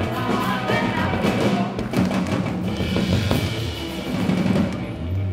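Live band playing, with drum kit and percussion to the fore over sustained bass notes.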